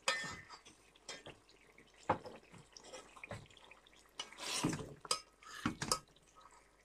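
Metal slotted spatula scraping and knocking against a metal cooking pot while stirring chicken and whole spices, in irregular strokes about once a second.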